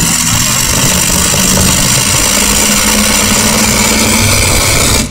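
Modified pulling tractor's engine running loud and steady.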